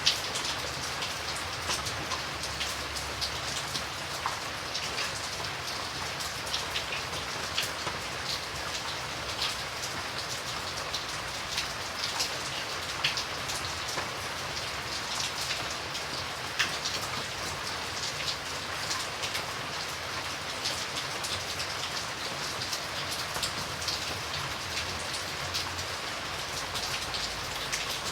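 Steady rain falling, with many separate drops pattering on a surface over an even hiss.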